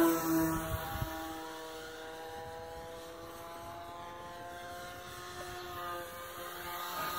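Electric motor and propeller of a QQ Extra 300 RC aerobatic plane running on a 3-cell battery: a steady, pitched buzzing drone. It is loudest at the start as the plane passes overhead, fades as the plane flies off, and grows louder again near the end.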